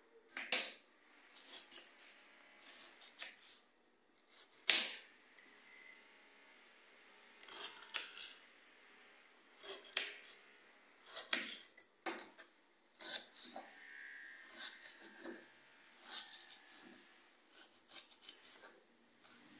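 Kitchen knife slicing an onion on a plastic cutting board: irregular crisp cuts and taps of the blade against the board, a few a second.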